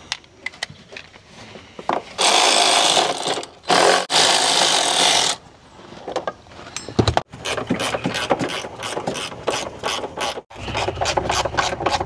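Cordless electric ratchet backing out 12 mm door hinge bolts: its motor runs in two bursts of about a second and a half each, then the ratchet clicks rapidly through the second half as it is worked on the bolt.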